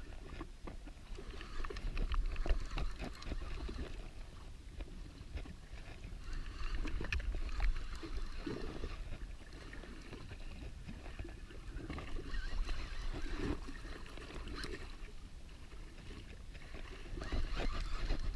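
Sea water slapping and sloshing against the hull of a jet ski, over a low rumble. It swells and eases every few seconds, with scattered clicks and knocks as a fishing reel is worked.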